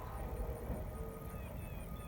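A lull between two blasts of a Nathan K5LA locomotive air horn: a low background rumble, with a few faint high chirps in the second half.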